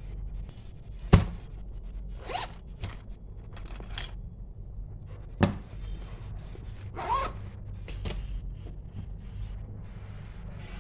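Zipper of a fabric pencil pouch being pulled in two short strokes, with a sharp tap about a second in and another knock near the middle as craft items are handled.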